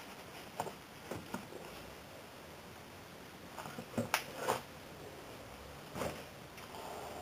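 Handling noise: gloved hands shifting plush teddy bears in a cardboard box, and the box knocking and scraping as it is taken out of a plastic cabinet. Light knocks and taps come about a second in, a cluster around four seconds in, and a sharper knock about six seconds in.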